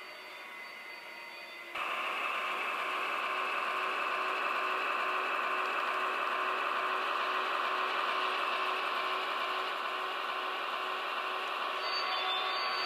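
HO scale model train running along the track: a steady hum from the locomotive's motor and wheels, starting suddenly about two seconds in.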